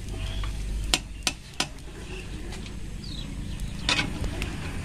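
Metal ladle clinking and scraping against a large iron kadai of frying oil, with a few sharp knocks about a second in and again near the end, over a low steady rumble.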